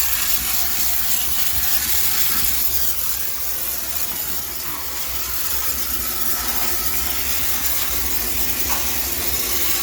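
High-pressure steam cleaner jetting steam with a steady hiss, over a low steady hum.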